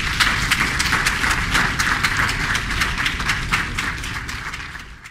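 Audience applauding at the end of a violin piece: a dense patter of hand claps that thins and fades near the end, then cuts off abruptly.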